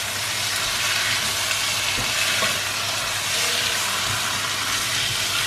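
Chicken pieces sizzling in thick masala in a nonstick wok as they are stir-fried: a steady frying hiss, with a couple of soft knocks of the spatula about two seconds in.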